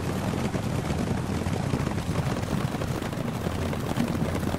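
A herd of horses galloping through snow: a steady rumble of many hooves with a dense patter of hoof strikes.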